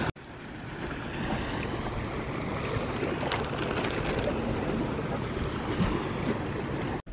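Wind on the microphone over small sea waves washing against a rocky shore, with a short crinkle of a plastic snack bag being handled about three seconds in.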